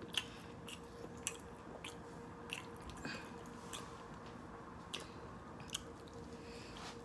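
Close-up eating sounds of people chewing and biting into hot chicken wings: scattered wet mouth smacks and clicks, a few each second or so, over a faint steady hum.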